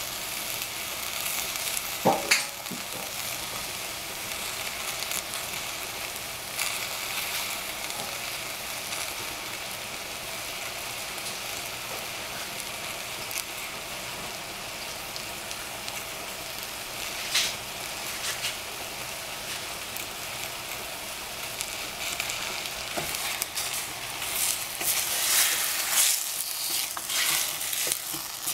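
Cabbage and oyster mushrooms sizzling steadily in a stainless-steel saucepan, with a couple of sharp pops. Near the end a wooden spatula stirs them, adding louder, irregular scraping and rustling.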